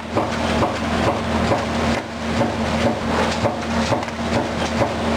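1989 Finn-Power TP 3015 CNC turret punch press running its program: a quick run of repeated punching strokes, several a second, over the machine's steady hum.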